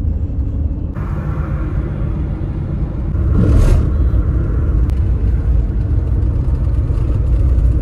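Steady low rumble of a moving car's engine and tyres, heard from inside the cab's back seat, with a brief louder rush of noise about three and a half seconds in.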